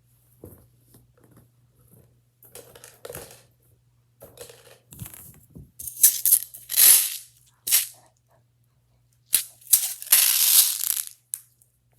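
Plastic fidget toys rattling and clattering as they are handled and shaken, in irregular bursts that are loudest about six and ten seconds in.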